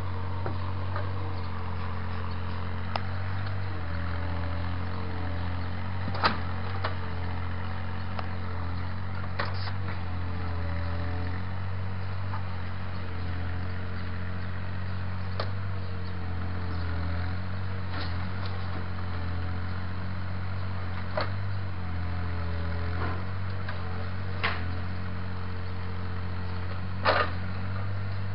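Takeuchi mini excavator's diesel engine running steadily under hydraulic load, its note shifting slightly as the boom and bucket work soil back into a drain trench. Sharp knocks every few seconds as the bucket strikes soil and stones, the loudest a double knock near the end.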